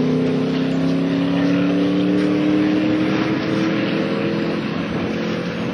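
A land speed race car's engine pulling hard in one gear as it drives away across the salt, its note rising slowly and steadily while it gradually fades with distance.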